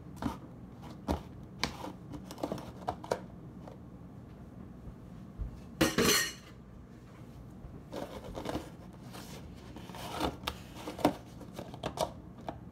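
Plastic slime container being handled: scattered clicks and knocks as slime is pressed into it and the lid is tried, with one louder scraping rattle about six seconds in.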